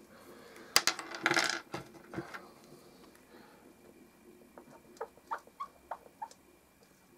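Whiteboard marker squeaking in a run of short strokes as a coil is drawn. About a second in come a few sharp clicks and a brief scrape, the loudest sounds.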